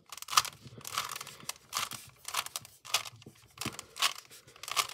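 Rubik's cube layers being turned by hand: an irregular run of quick plastic clicks and scrapes, about three a second.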